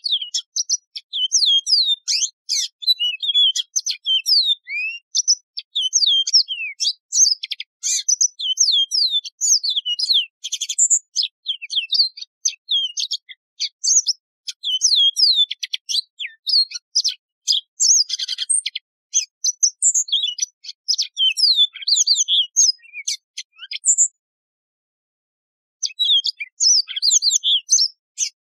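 Yellow-fronted canary singing a long, fast, twittering song of high, sliding notes with a few buzzy trills mixed in. The song breaks off for about two seconds near the end, then starts again.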